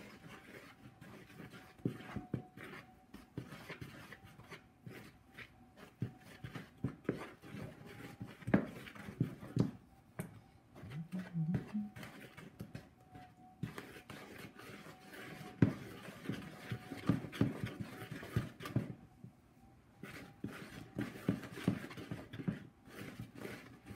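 Long spoon stirring thick quick-bread batter in a plastic mixing bowl: irregular knocks and scrapes against the bowl, with a faint steady hum underneath.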